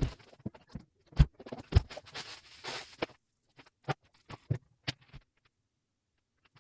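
Household cleaning noises: a string of knocks and taps as objects are handled and set down, with a rustling stretch from about one and a half to three seconds in.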